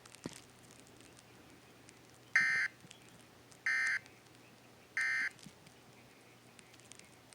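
Emergency Alert System end-of-message data signal: three short, identical buzzy digital bursts about a second and a quarter apart, marking the close of the test alert.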